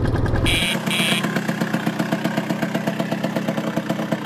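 Motor scooter engine sound effect. A deep rumble drops about half a second in to a steady idle with fast, even pulsing. Two short high beeps come about half a second and a second in.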